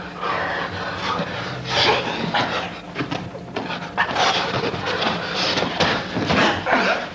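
Two men grappling in gis: straining grunts, hard breathing and scuffling on the mats, with unclear shouts from the people around them.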